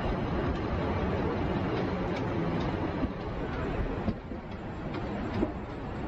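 Steady low rumble of busy city traffic, with a few short knocks; it eases slightly about four seconds in.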